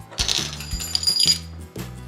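Small metal button parts, shells or pin backs, clinking and jingling against each other, with a bright metallic ringing in the first second or so, over background music.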